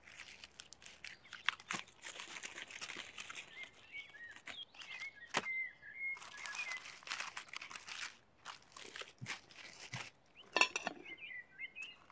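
Aluminium foil crinkling in short irregular bursts as hands open a foil packet of roasted food. A small bird twitters in the background twice, in the middle and again near the end.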